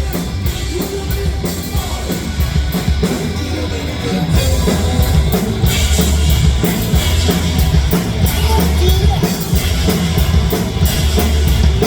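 Rock music played by a band: a drum kit keeping a steady beat, with bass drum and guitar, loud throughout.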